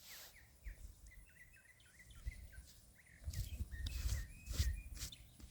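Small birds chirping, a quick string of short high chirps. From about halfway, low rumbling on the microphone and a few brief scraping rustles come in over them.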